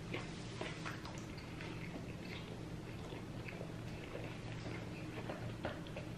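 A person chewing food close to the microphone, with many small, irregular wet clicks from the mouth.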